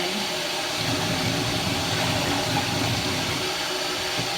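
Steady hiss of running water rinsing a dog in the bath.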